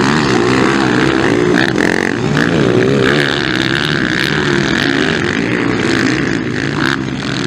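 Motocross dirt bike engines revving hard, the pitch rising and falling again and again as the throttle opens and closes.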